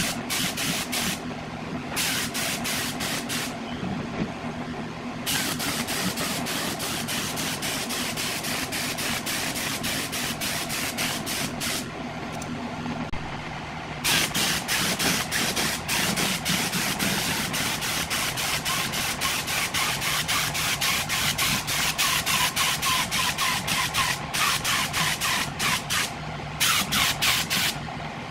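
Paint being sprayed onto a plastic subwoofer enclosure: a spray hiss that comes in long bursts and stops briefly several times, over a steady mechanical hum.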